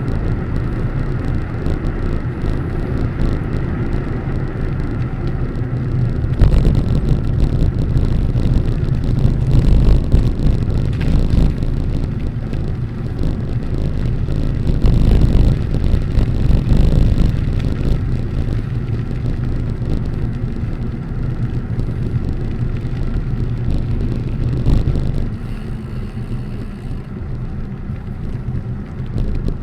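Wind rumbling and buffeting over the microphone of a moving rider, with stronger gusts about six and fifteen seconds in, easing off near the end.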